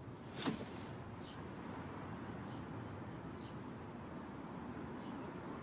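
Quiet outdoor background: a steady low hiss with a few faint, short bird chirps, and one brief soft sound about half a second in.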